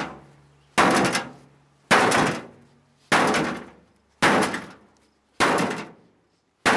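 Six heavy slam-like impacts, evenly spaced about a second apart, each dying away within half a second with a faint low ring.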